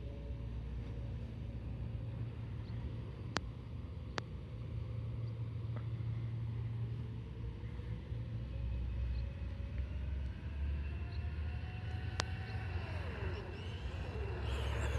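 An RC car's electric motor (HPI Firebolt 15-turn) whining faintly as the car runs, rising in pitch over several seconds as it speeds up, then dropping and wavering near the end as it slows and turns. A steady low rumble lies under it, with a few sharp clicks.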